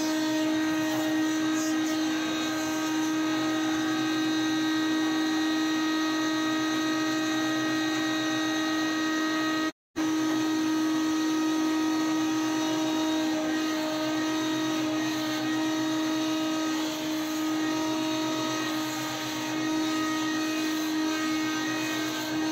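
Sawmill machinery running steadily: a Cleereman Lumber Pro thin-kerf band mill and its feed rollers, giving a constant motor hum and whine over a steady mechanical rush. The sound cuts out for a split second about ten seconds in.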